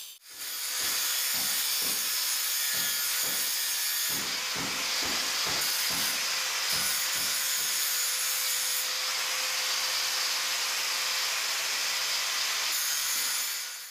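Angle grinder with a ceramic cutting disc grinding along the edge of a granite countertop to form a bevel: a steady high hiss of disc on stone, pulsing about twice a second through the first half as the disc is worked back and forth.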